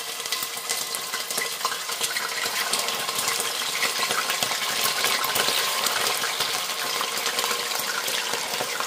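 Pork ribs frying in hot oil in a stainless-steel pressure cooker pot: a dense, steady sizzle with spitting crackles, a little louder around the middle.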